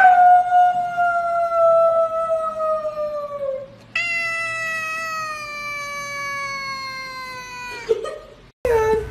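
Tabby cat yowling: two long, drawn-out meows, each slowly falling in pitch, the second starting about four seconds in.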